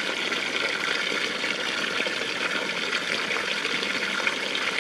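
Waterfall and cascading river water rushing steadily, an even hiss with no breaks.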